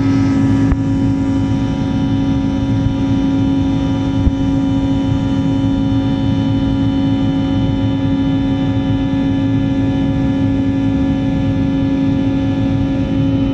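Airliner engines heard from inside the passenger cabin: a loud, steady drone with several constant whining tones over a dense rush of noise.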